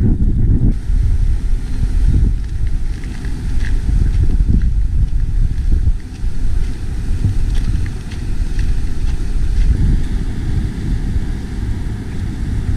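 Wind buffeting the microphone: a loud, gusty low rumble with a brief dip about six seconds in.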